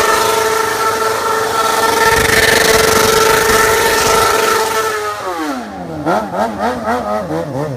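Motorcycle engine held at high, steady revs during a burnout. About five seconds in the revs drop, then rise and fall in quick throttle blips about three times a second as the bike spins in tight circles.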